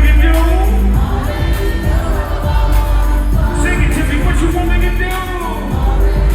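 Music: a song with a sung vocal melody over a heavy bass line.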